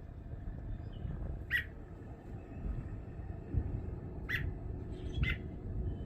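American robin giving three short, sharp calls, the first about a second and a half in and two more close together near the end, over a low rumble on the microphone.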